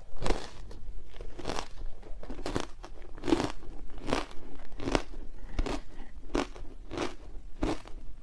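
Matcha-dusted ice being crunched between the teeth: a steady run of crisp crunches, a little more than one a second.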